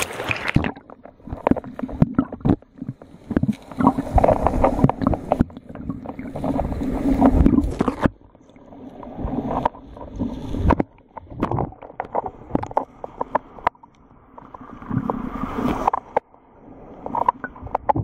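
Water sloshing and bubbling against a camera held at and under the sea surface, muffled, in irregular bursts with knocks and short quieter gaps.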